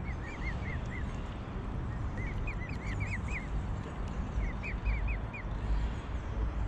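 Mute swan cygnets peeping: short high-pitched calls in three quick runs of about five to seven, over a steady low rumble.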